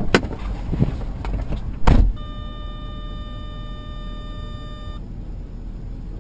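A few sharp knocks and then a loud bang about two seconds in, followed by a steady electronic-sounding tone held for about three seconds that cuts off suddenly, over a low rumble.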